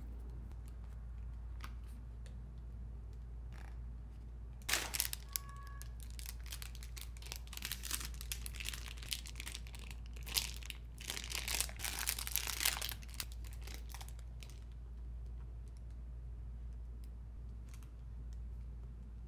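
Plastic shopping bags and packaging crinkling as they are handled, in crackly bursts from about 5 seconds in until about 14 seconds, over a steady low hum.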